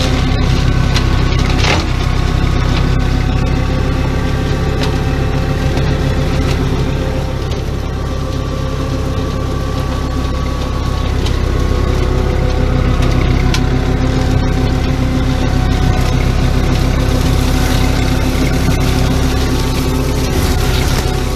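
Tractor engine running steadily while driving a GeoTech Pro KFM 170M hammer flail mower through the PTO shaft, shredding dry grass and brush. Occasional sharp cracks of twigs are heard through the steady sound.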